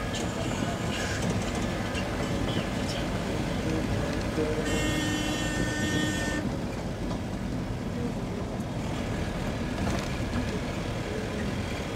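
Steady running noise of a motor vehicle on the move, with a horn sounding once for about a second and a half near the middle.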